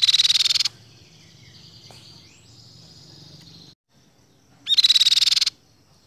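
Crescent-chested babbler (tepus pipi perak) singing: a loud, very rapid trill at the start and a second one about five seconds in, with faint thin whistles between.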